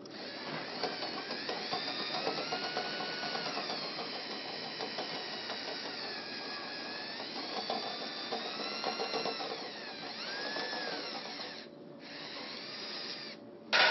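Power drill spinning a dryer vent cleaning brush on its rods. The motor's whine rises and falls in pitch as the speed changes, and dips briefly twice near the end.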